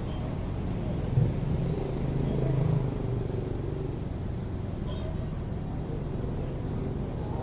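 Urban playground ambience with a steady low rumble of city traffic. About a second in there is a sharp knock, then a vehicle passes louder for a couple of seconds. Faint distant voices carry under the traffic.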